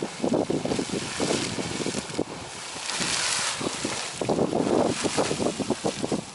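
Geyser erupting: water splashing and surging in irregular bursts, with a stretch of rushing hiss about three seconds in.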